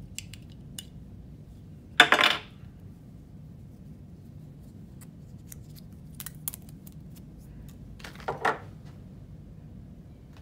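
Small plastic clicks and clinks from an HP 63XL ink cartridge and its green plastic protective cover being handled and set down, with two short louder scraping noises: one about two seconds in, the loudest, and another near the end.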